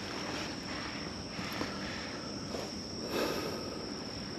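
Insects chirring in a steady, high, unbroken trill, with a few brief rustles and knocks over it, the loudest about three seconds in.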